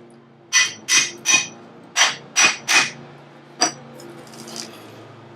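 A hammer striking metal with a ringing clank, seven blows: two quick sets of three, then one more.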